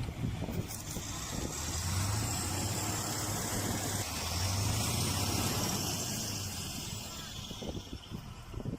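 Heavy off-road truck engine running under load as it drives through snow: a steady low drone with a wide hiss above it that swells from about a second in and fades near the end.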